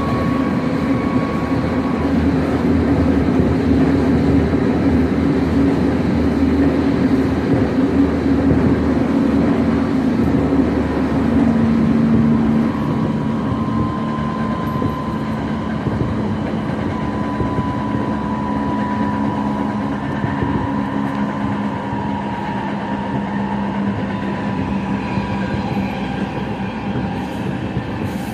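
Tokyo Metro 07 series electric train running at speed, heard from inside the car: steady rumble of wheels on rail with a hum and whine from the traction motors and gears, easing off slightly about halfway through.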